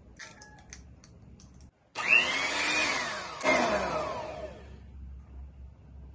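A few light clicks of an egg being cracked open, then an electric hand mixer with dough hooks switches on in the bread dough about two seconds in. Its motor whine falls in pitch, surges again about a second and a half later, falls again, then settles to a quieter run.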